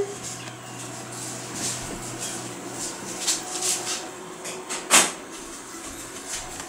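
Quiet room noise with soft rustling and one sharp click or knock about five seconds in, over a faint steady hum.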